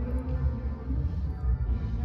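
Music with a strong, pulsing bass beat.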